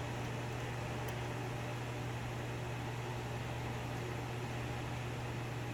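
Steady low hum with an even hiss, like a fan or electrical hum in a small room, with one faint click about a second in.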